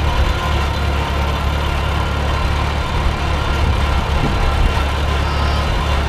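Old farm tractor's engine running steadily at an even, low speed while it pulls a wagon, a constant deep hum.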